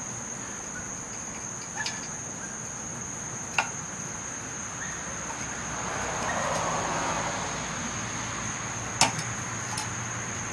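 Steady high-pitched chirring of crickets, with a few sharp clicks and knocks as 2x4 lumber is worked into sawhorse brackets, the loudest about nine seconds in.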